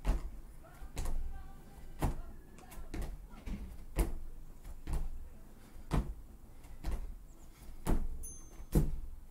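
Sneakered feet stepping and landing on foam gym mats over a wooden deck, a dull thud about once a second with lighter scuffs between.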